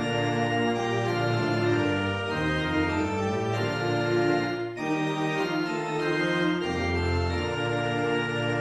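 Organ music: a slow gatha accompaniment of sustained chords that change every second or so, with a brief break just before halfway.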